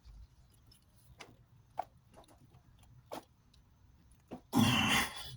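Long-nose pliers working a press-fit oil dipstick tube loose in an engine block: scattered faint metallic clicks and taps. Near the end comes a louder, harsh scrape lasting about half a second as the tube shifts.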